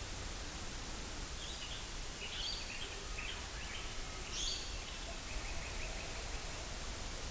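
Steady hiss of an outdoor recording, with a faint flurry of short, high chirping bird calls from about one and a half to six seconds in.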